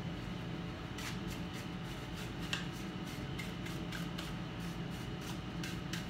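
A small brush scrubbing dust off a black part taken out of an iMac, in short irregular scratchy strokes from about a second in, over a steady room hum.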